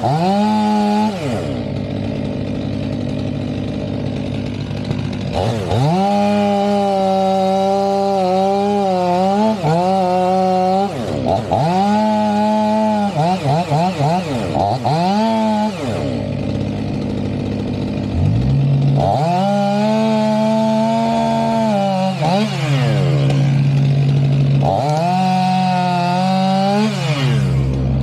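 Stihl MS 500i fuel-injected two-stroke chainsaw felling a tree: the engine revs up to full throttle while cutting, then drops back toward idle, about five times over. About two-thirds of the way through, a second engine's steady low drone comes in underneath.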